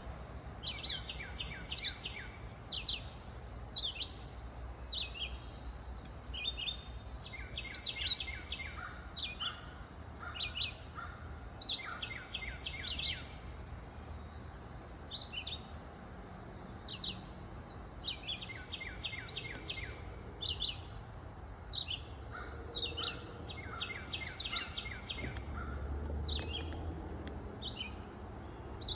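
Small songbirds singing: short, clear, falling whistled notes repeated every second or so, often running straight into quick series of lower notes. The uploader wonders whether they are a chickadee or a tufted titmouse.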